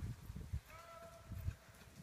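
Cattle moving through a meadow: several dull thuds of hooves on the ground, with one high, steady call lasting under a second in the middle.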